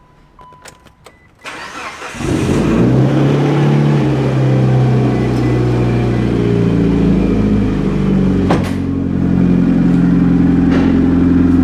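Mitsubishi Lancer Evolution IX's turbocharged 2.0-litre four-cylinder engine cranked and started for the first time after an oil change, catching about two seconds in and then idling steadily. A few beeps and clicks come just before the start, and a sharp click about eight seconds in.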